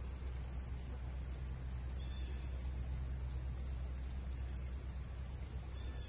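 A steady, high-pitched insect chorus trilling without a break, over a low rumble.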